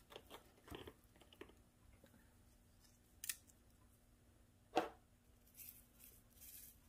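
Quiet handling of a spice jar while dried rosemary is sprinkled over a raw salmon fillet: faint taps and rustles, with one sharper knock about two-thirds of the way through.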